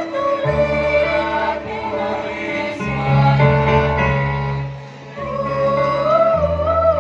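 School choir singing in several parts, holding long chords that move from note to note, with a brief drop in loudness about five seconds in before the voices come back in strongly.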